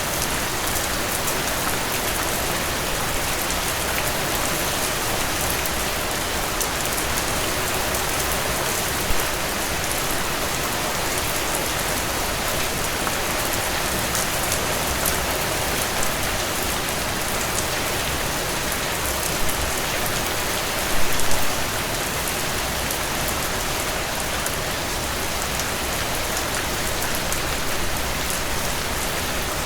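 Steady heavy rain falling and pattering on surfaces, a dense even hiss with individual drop ticks, with a few brief louder splashes, most around twenty seconds in.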